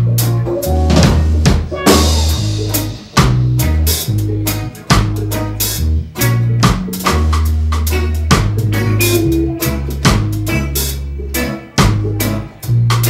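Live band playing an instrumental passage: a drum kit keeping a steady beat with kick and snare, deep bass notes stepping from one pitch to the next, and strummed guitars.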